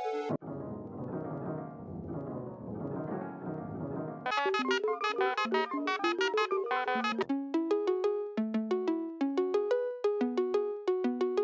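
Teenage Engineering OP-1 Field synthesizer played live, running through presets. A dense, low chordal pad plays for about four seconds, then quick bright plucked-sounding notes, and about seven seconds in the tone changes to a bouncy pattern of low notes answered by higher ones.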